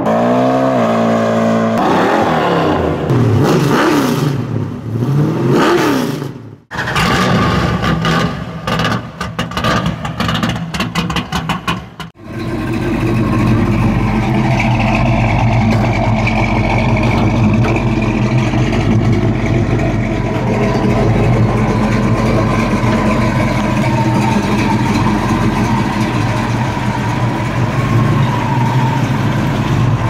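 1969 Dodge Charger R/T's 440 big-block V8 revving and pulling away, its pitch rising and falling. After a break comes a stretch of rapid uneven pulses. From about twelve seconds in the engine settles into a steady, loud idle.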